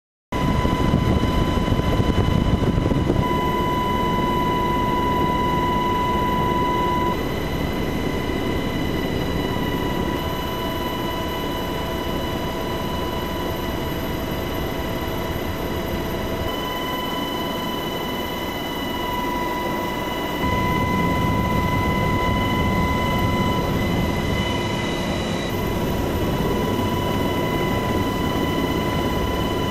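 UH-60 Black Hawk helicopter running: a steady high whine over dense engine and rotor noise, cutting in abruptly just after the start and shifting a little in loudness a couple of times.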